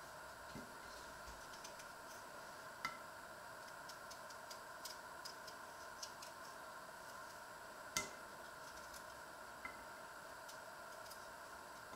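Small kitchen knife peeling potatoes over a metal pan: sparse light clicks and ticks, the sharpest about three and eight seconds in with a brief ring, over a steady faint hum.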